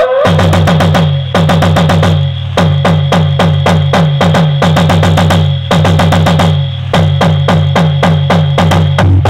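A DJ dance track played loud through a cart-mounted stack of horn loudspeakers. It has rapid drum hits, several a second, over a steady bass hum and a held high note.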